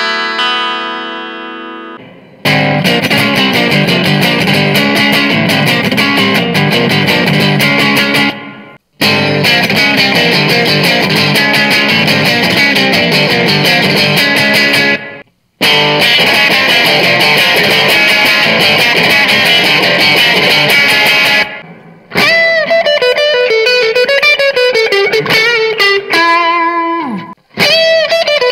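Legend TL-type (Telecaster-style) electric guitar played in a trial: an arpeggiated chord on the rear pickup rings out and fades, then three runs of dense strummed chords, each ending in a brief silence. For the last third it plays a single-note lead with bends and vibrato on the front and rear pickups together.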